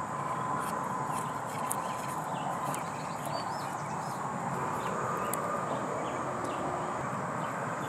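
Siamese cat chewing on a grass stalk, scattered crisp clicks of its teeth over a steady outdoor hiss.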